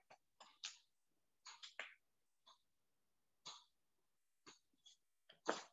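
Near silence: faint room tone broken by a few short, soft noises, the loudest about five and a half seconds in.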